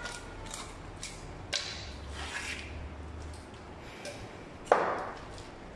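Knife cutting and scraping through a tuna's flesh on a wooden cutting board: a run of short scrapes and clicks, with one loud knock near the end.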